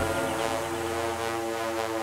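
Progressive house DJ mix going into a breakdown: the bass and beat cut out just as it begins, leaving sustained synthesizer pad chords droning on.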